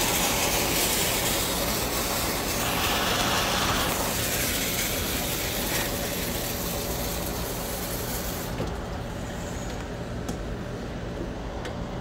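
Water spraying and hissing from an internal leak inside a pool heat pump heater, which burst inside after the return valves were shut with the pump running, over the steady hum of the running pool pump. The hiss drops away about two-thirds of the way through, leaving the hum.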